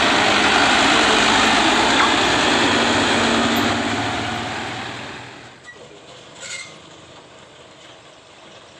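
Mitsubishi Fuso truck's diesel engine and tyres passing close by on a rough dirt road, loud at first, then fading away over about five seconds as it pulls off.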